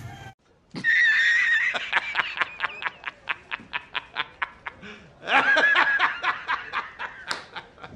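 A person laughing in a high voice: a squeal, then a run of quick, even giggles. About midway there is a second squeal, followed by more giggles.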